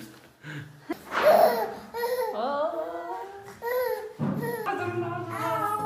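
A five-month-old baby babbling and laughing in high, gliding squeals. Light background music with a stepped tune comes in about four seconds in.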